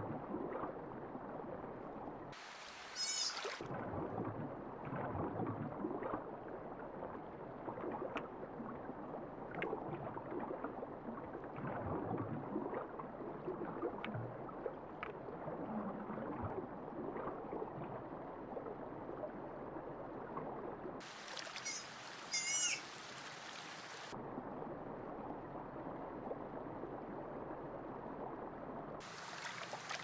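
Otters vocalizing, with bursts of high, quavering squeaks about three seconds in and again about twenty-two seconds in. Under them runs a continuous mix of lower chirps and whines with a watery, splashing noise.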